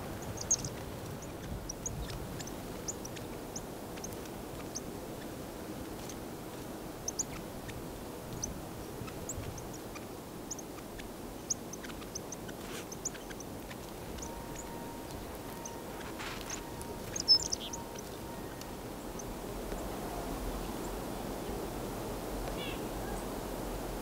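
Small songbirds in winter woods giving short, sharp, high chip notes at irregular intervals, the loudest little cluster about two-thirds of the way through, over a steady low background hiss.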